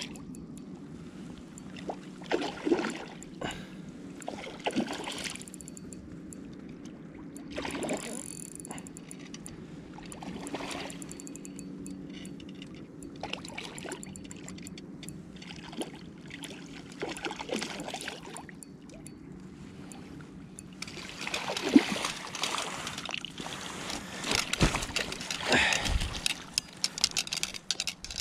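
Water splashing and sloshing in irregular bursts, loudest over the last several seconds, with a few scattered knocks earlier, over a steady low hum.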